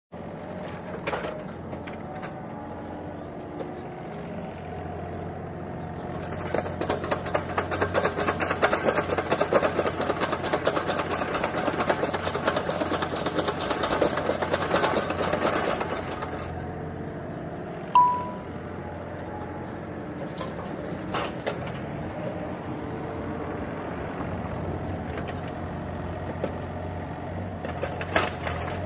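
A cardboard parcel being unpacked, its packing tape crackling in a dense, rapid run for about ten seconds. A single clear ding rings out about two seconds after it ends. A steady low hum lies underneath.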